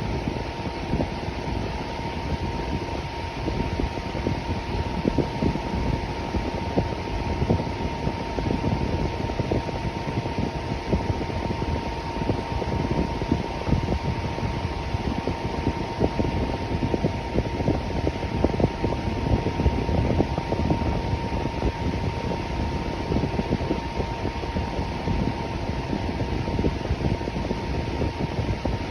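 Electric fan running steadily: an even rush of air with a thin, steady whine in it.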